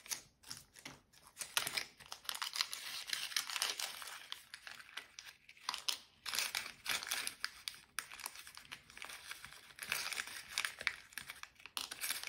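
Small clear plastic zip-lock parts bag of screws crinkling as it is handled and opened, in irregular bursts of crackling.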